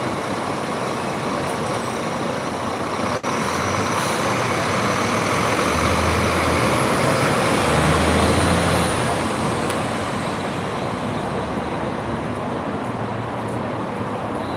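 Steady outdoor road-traffic noise, with a deeper rumble of a heavier vehicle swelling and passing midway.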